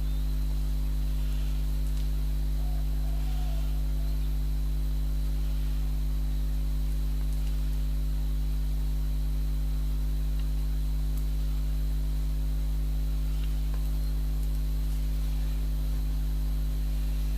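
Steady electrical mains hum, a low buzz with its overtones, unchanging throughout.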